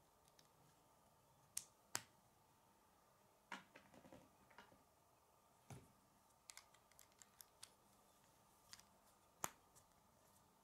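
K'nex plastic rods and connectors clicking as they are snapped together: a dozen or so short, sharp clicks at irregular intervals, the loudest about two seconds in and again near the end.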